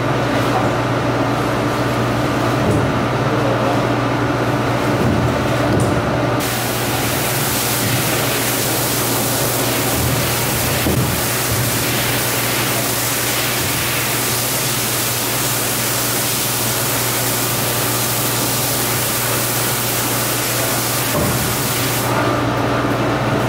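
Steady machine hum of a rug-washing pressure washer. About six seconds in, the hiss of a high-pressure water jet spraying onto a soaked rug starts; it cuts off shortly before the end.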